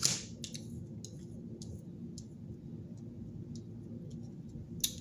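Tarot cards being turned over and laid down on a tabletop: a scatter of light clicks and taps, the sharpest right at the start and another just before the end, over a steady low hum.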